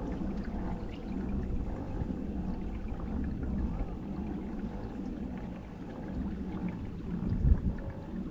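Water splashing and lapping around a paddled kayak, with a low rumble throughout and one heavy low thump near the end.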